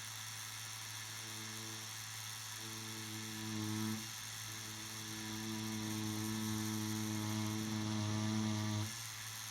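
Tattoo machine buzzing steadily while lining with the needle. Its tone grows fuller in stretches and drops back briefly about four seconds in and again near the end.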